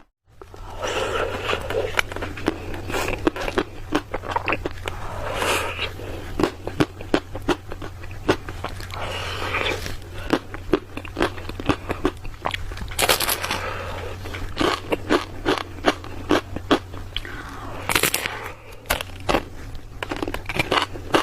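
Close-miked eating of ice cream: repeated crunchy bites and chewing with many short sharp crackles, over a steady low hum.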